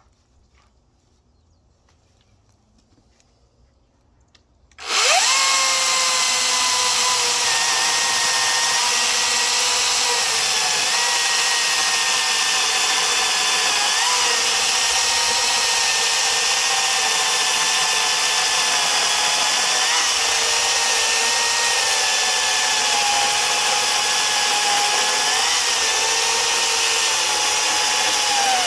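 Near silence for about five seconds, then a Harbor Freight Atlas 18-inch battery chainsaw starts suddenly and runs steadily, its electric motor whine and chain rattle continuing while it cuts through sycamore. The pitch dips slightly every few seconds under load, but the saw does not bog down.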